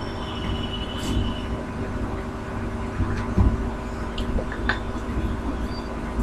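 Steady low background rumble and hum, with a few faint knocks and taps as a small aluminium-framed chalkboard is shifted and handled.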